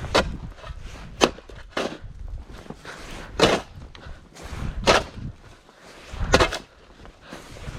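Snow shovel strokes: a scrape or chop into snow about every second or so, six in all at an uneven pace, some of them drawn-out scrapes.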